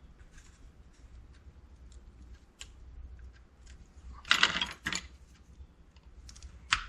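Small plastic clicks as a pin tool pries at the shell of a wiring-harness connector, then two loud sharp cracks about four and five seconds in as a plastic locking tab on the shell snaps off. Another shorter crack follows near the end.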